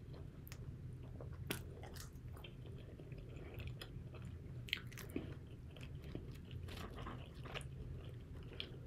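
A person chewing KFC fries and spicy fried chicken wings close to the microphone, with irregular small crunches and mouth clicks over a steady low hum.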